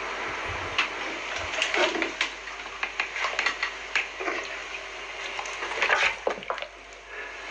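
Irregular knocks, clatters and scrapes on a kitchen counter as a caracal grabs a whole raw chicken off a cutting board and drags it down.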